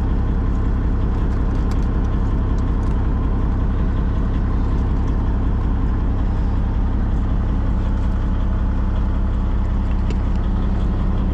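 Kenworth T800 dump truck's diesel engine idling steadily, with a few faint clicks from the trailer hose and plug connections being handled.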